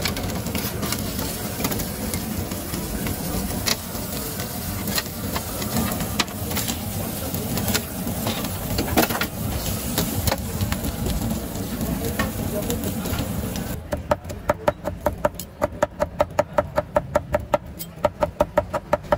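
Busy food-stall bustle: sizzling and clatter with voices mixed in. Near the end the bustle gives way to a fast, even run of sharp knocking strikes, about four a second, from a utensil working the food.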